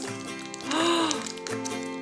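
Background music with steady held notes. About a second in, a short voice exclamation rises and falls in pitch.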